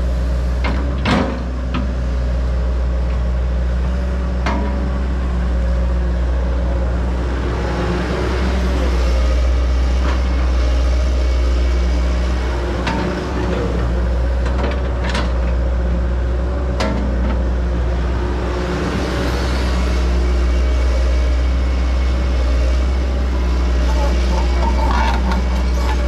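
Heavy diesel excavating equipment running steadily, with a John Deere 120 excavator digging out dirt and roots. A few sharp knocks and cracks stand out over the engine drone, from the bucket working the ground.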